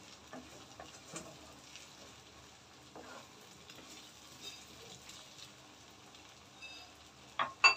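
Chopped hog plums in mustard oil frying in a wok, stirred with a wooden spatula: faint sizzling with small clicks from the spatula, and two sharp knocks near the end.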